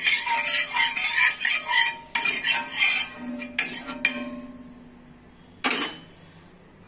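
A metal spoon scraping and spreading oil around a blackened iron tawa in quick repeated strokes that slow and stop about four seconds in. Near the end comes a single sharp clink.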